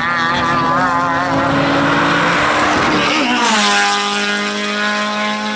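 Race car engine held at high revs with a wavering pitch, then the revs drop a little over three seconds in and hold steady at a lower pitch. A rush of broad noise rises just before the drop.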